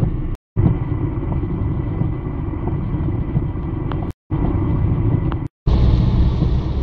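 Steady low rumble of a car driving, heard from inside the cabin in heavy rain, with a few faint ticks. The sound cuts out completely three times for a moment.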